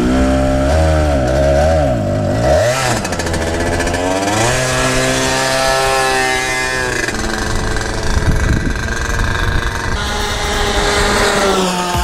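Go-kart engine revving, its pitch rising and falling several times in the first few seconds as the throttle is worked, then running at a steadier speed.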